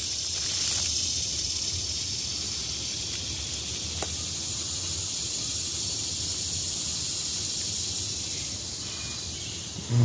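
Steady high-pitched drone of insects in summer woods, with a couple of faint clicks as small plastic scraps and leaves are picked off the forest floor by hand.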